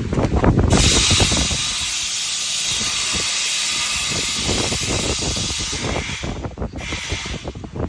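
A loud steady hiss that starts about a second in and breaks off near the end, over low rumbling and scattered knocks.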